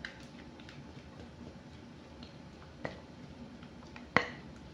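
Three sharp, light knocks of a mixing bowl and utensil while cake batter is poured into a loaf pan, the loudest about four seconds in, over a faint steady hum.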